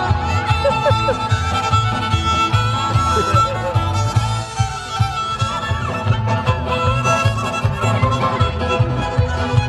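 Upbeat background music with fiddle over a steady beat.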